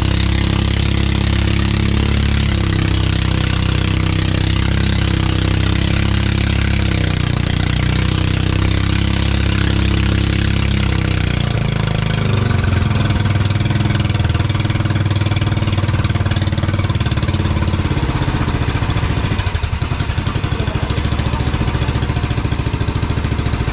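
Engine of a motorized outrigger boat running under way over the rush of wind and wake. Its note drops a little about halfway through and again near the end, where the individual firing beats can be heard as it is throttled back and the boat slows.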